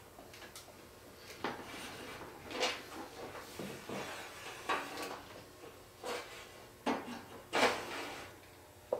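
Irregular knocks, clicks and rustling as hands work plugs and cables down in an equipment rack, about seven handling noises, the loudest near the end.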